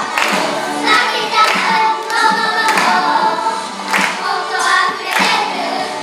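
A group of children singing a song together over backing music, with a sharp beat striking about once every second and a bit.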